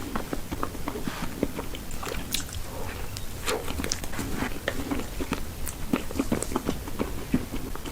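Close-miked chewing and biting of food, with many quick, irregular mouth clicks and crackles.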